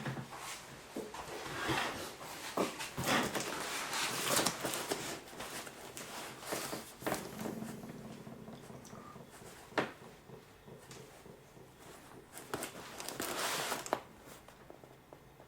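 Hands unpacking a parcel: irregular rustling of packing material with scattered clicks and knocks as items are handled. It is busiest in the first few seconds, with a sharp click about ten seconds in and another stretch of rustling near the end.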